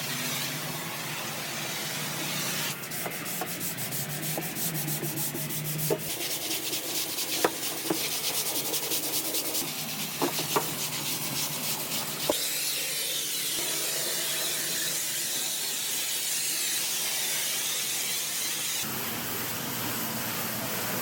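Pressure washer spray hissing steadily as water blasts a patio surface. The hiss shifts in character a few times, with a rapid flutter and a few sharp clicks through the first half.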